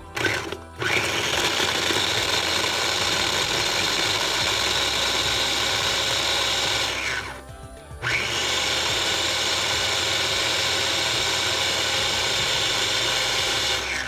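Small electric mini chopper motor running in two long pulses, about six seconds each with a brief stop near the middle, chopping peeled garlic cloves.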